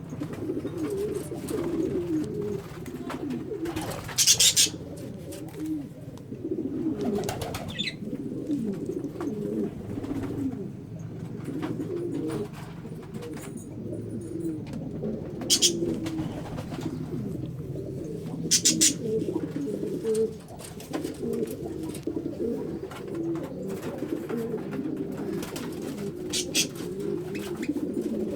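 Many pigeons cooing continuously in overlapping low calls, with a few brief, sharp high-pitched bird calls standing out now and then.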